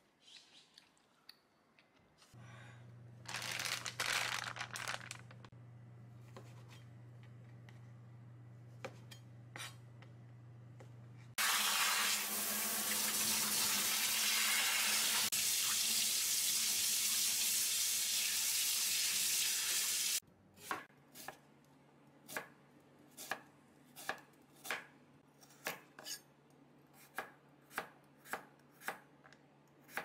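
Kitchen tap running hard into a stainless steel sink, water pouring through a mesh strainer of fish cake, for about nine seconds in the middle. Then a kitchen knife slicing a carrot on a wooden cutting board, about two chops a second.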